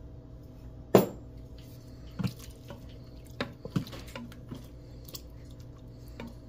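Broth mixture poured from a glass measuring cup into a stainless steel pot of beef chunks and stirred with a wooden spatula: liquid dripping and squishing, a sharp clink about a second in, and a few lighter knocks against the pot.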